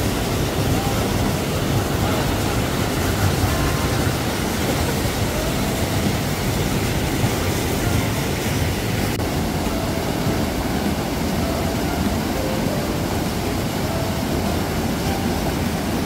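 Small mountain-stream waterfall pouring over granite boulders into a deep pool: a steady rush and churn of falling water.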